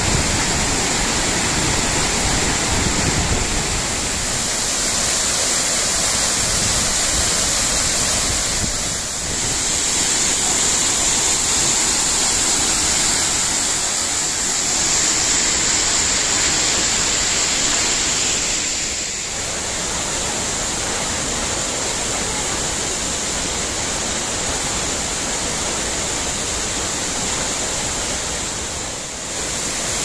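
Kapuzbaşı waterfall's water falling in many strands down a rock face onto boulders: a steady, loud rush, dipping briefly three times.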